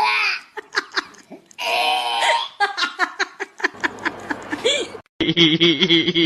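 People laughing and giggling, with bits of talk, cut off about five seconds in by another stretch of voices.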